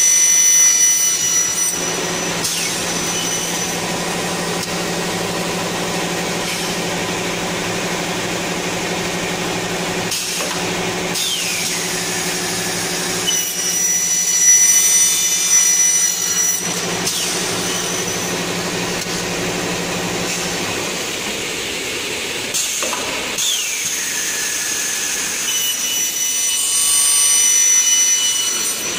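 Double-head aluminium cutting saw, its 3 kW motors driving 455 mm blades, running and cutting aluminium profiles dry without coolant. The cuts come about every twelve seconds, each a louder stretch with a high ringing tone, and a falling whine follows two of them.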